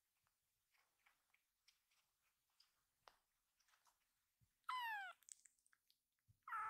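A very young tabby kitten meows twice, about a second and a half apart, each a short high cry that falls in pitch. These are its calls to gather its scattered littermates. Faint light ticks come before the first meow.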